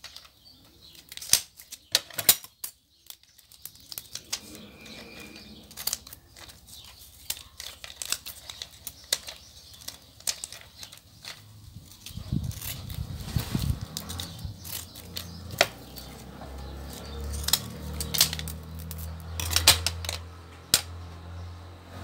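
Plastic-wrapped strand of small gold beads being handled, with light rustling and scattered small clicks, and a snip of scissors cutting the strand. From about halfway a low steady hum sits underneath.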